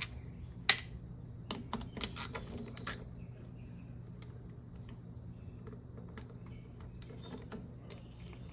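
Scattered light clicks and taps of hand tools and the plastic air filter box being handled as the box is unbolted from a push mower's engine, bunched in the first three seconds and sparser after.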